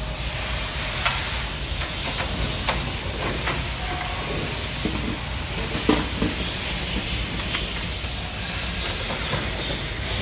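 Scattered plastic clicks and knocks of parts being handled and pulled from a Konica Minolta bizhub C308 colour copier, over a steady hiss and low hum. The loudest knock comes about six seconds in.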